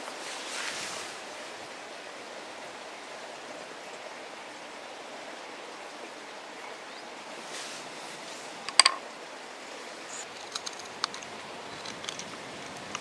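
Steady hissing background noise, with soft rustles, one sharp click about nine seconds in, then a few light ticks of a folding knife whittling a small piece of ash near the end.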